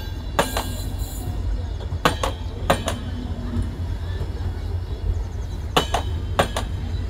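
LHB passenger coaches of a departing express train rolling past: a steady low rumble with the wheels clicking over the rail in quick pairs, twice about two seconds in and twice again near six seconds in.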